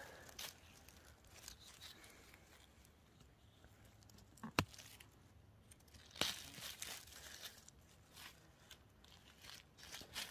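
Knife and hand digging a cep out of the forest floor: faint rustling and crackling of dry leaves, needles and soil, with two sharp cracks about four and a half and six seconds in.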